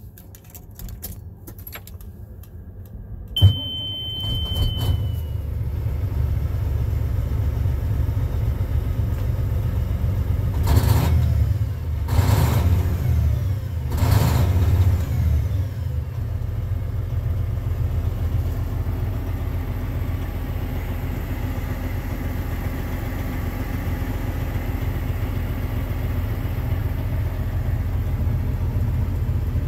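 Sterling A9522 heavy truck's diesel engine running, heard from inside the cab. A sharp click and a short high tone come about three seconds in. The engine is revved three times in quick succession around the middle, then settles to a steady idle.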